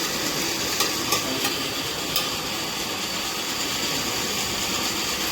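Waste-plastic filament extruder running steadily: its single-phase AC motor, chain drive and worm gearbox turning the extrusion screw, with a few light clicks.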